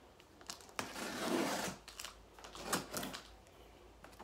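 A package being opened by hand: a sharp click about a second in, then a rough tearing and scraping of packaging, with a few more clicks and scrapes a little later.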